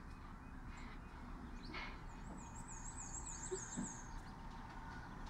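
Quiet room tone with a steady low hum. A little over two seconds in, a faint, high, rapidly warbling trill is heard for under two seconds.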